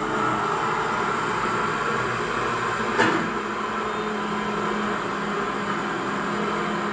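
Radio-controlled CAT 336D model excavator running steadily, its hydraulic pump and motors giving a continuous mechanical whine, with one sharp knock about three seconds in.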